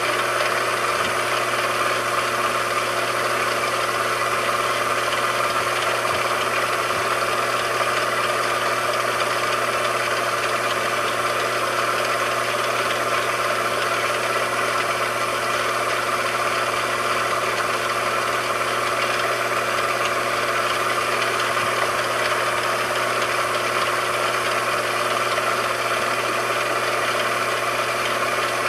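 A machine tool running steadily, a constant even hum with several fixed tones and no change in speed.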